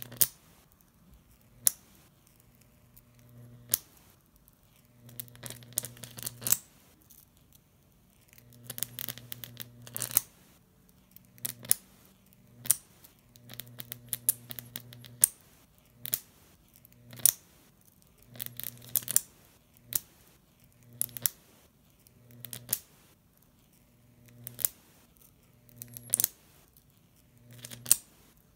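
High-voltage arc of a homemade Jacob's ladder running between two bare copper wires: it buzzes as it climbs, then breaks and re-strikes with a sharp crack, about once every second or two.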